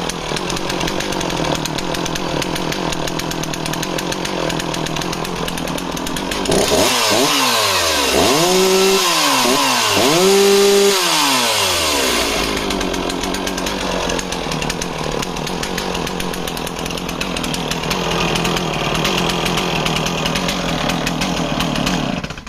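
Stihl 044 two-stroke chainsaw running after a restart: steady at first, then revved hard about three times, the pitch climbing and falling each time, before settling back and being shut off just before the end.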